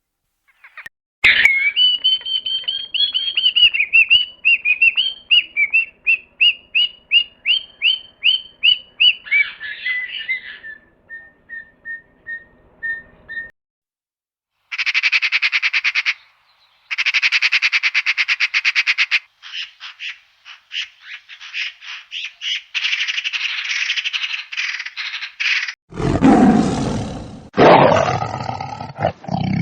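A succession of different animal calls. First comes a long series of high, repeated chirping notes, then a few faint short notes. After a short gap there are rapid buzzing trills, and about twenty-six seconds in a low roar begins.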